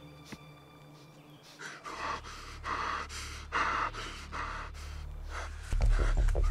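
A man gasping and breathing hard: three strong gasps about a second apart, then weaker ones. A low drone of music comes in underneath and swells loudly near the end.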